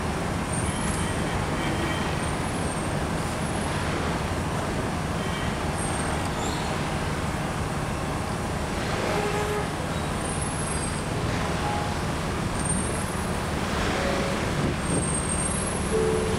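Steady city street traffic noise: a constant low rumble of cars and vans idling and passing.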